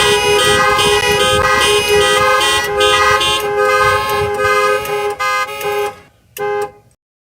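Car alarm sounding through a car horn: repeated honks about twice a second. It stops about six seconds in, then gives one last short honk.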